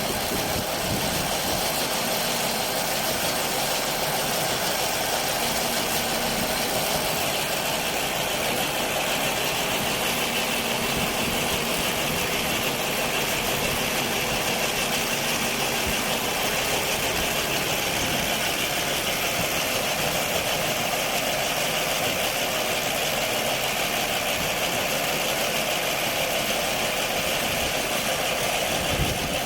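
Lavender harvesting machine running steadily, with an engine and its cutting machinery making an even mechanical noise that does not change.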